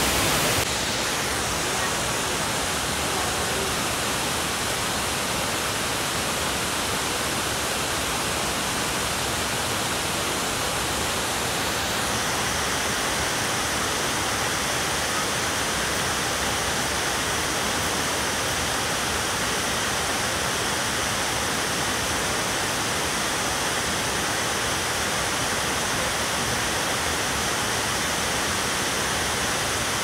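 Tall mountain waterfall: a steady, even rush of falling water. Its tone shifts slightly about a second in and again about twelve seconds in.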